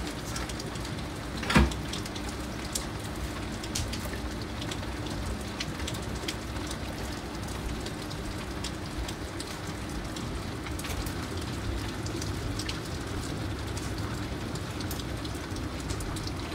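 Heavy rain falling steadily, with scattered drops ticking sharply against window glass and one louder knock about a second and a half in.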